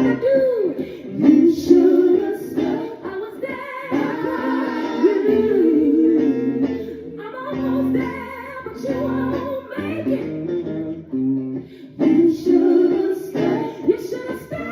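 A song played live by a band: a lead singer's voice carrying a gliding melody over guitar and fuller band accompaniment.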